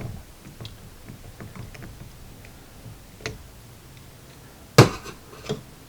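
Small Phillips screw being backed out of an outboard carburetor with a screwdriver: faint scattered clicks and ticks of metal on metal, then a sharp knock near the end and a lighter one after it.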